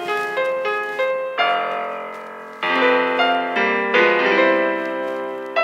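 Piano-like keyboard music: a slow melody over chords that are struck about every second and a bit, each fading away before the next.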